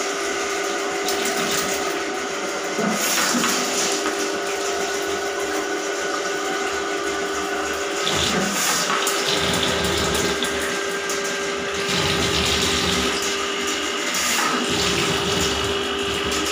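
Handheld electric drain-cleaning machine running with a steady motor hum as its spinning spring cable works into a clogged bathroom floor drain, with water splashing. The hum falters briefly a couple of times as the cable is fed in.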